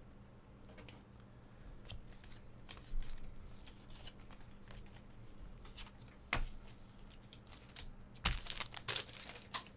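Trading-card packs being torn open and cards handled: scattered soft rustles and clicks, a sharp snap about six seconds in, and a burst of wrapper crinkling near the end. A low steady electrical hum runs underneath.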